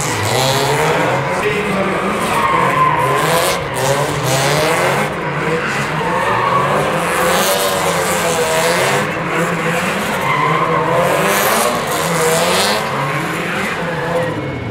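Two Subaru drift cars sliding through corners: tyres squealing with a wavering pitch over the steady sound of their engines running hard.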